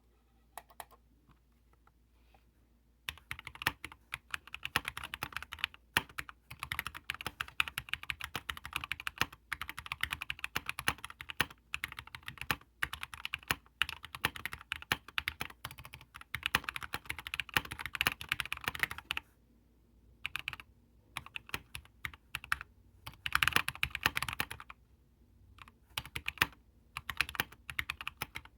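Computer keyboard being typed on: a few single keystrokes, then fast continuous runs of key clicks from about three seconds in, broken by a couple of short pauses later on.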